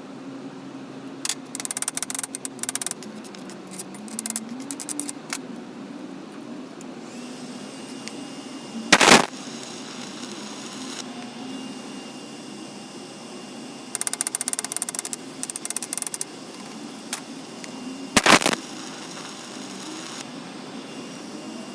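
A small motor running steadily, with bursts of rapid rattling clicks and two short, loud bursts about nine seconds apart.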